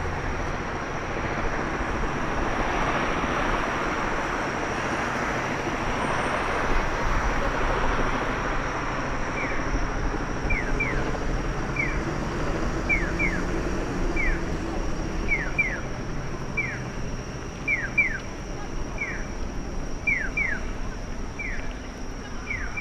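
Street traffic passing with a steady roar of tyres and engines. From about ten seconds in, a Japanese pedestrian crossing signal's electronic bird-call tone repeats in short descending chirps, alternating single and double ("piyo, piyo-piyo"), signalling that pedestrians may cross.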